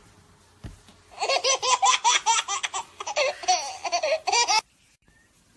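A person laughing hard in rapid, high-pitched bursts, starting about a second in and cutting off abruptly after about three and a half seconds.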